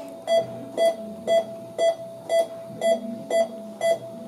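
Bedside patient monitor beeping steadily, about two short, identical beeps a second at one pitch: the pulse tone following the patient's heartbeat.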